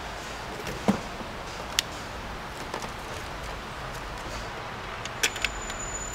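Scattered clicks and clacks of a handheld battery tester and its clamp leads being handled and clipped onto the battery terminals, over a steady shop hum. A double click comes about five seconds in, after which a thin high whine holds steady.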